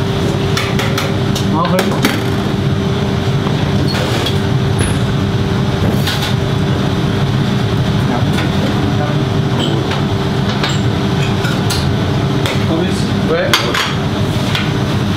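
Restaurant kitchen ambience: a steady machine hum under scattered sharp clinks and taps of utensils and plates on a steel counter, with faint voices in the background.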